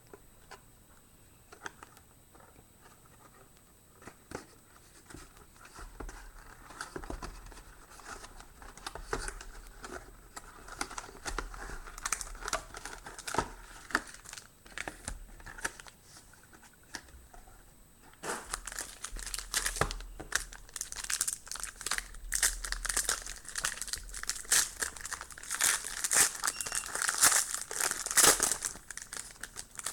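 Plastic wrapping on a trading-card box being torn open and crinkled. It is quiet for the first few seconds, then comes in scattered crackles that get louder and busier about two-thirds of the way through.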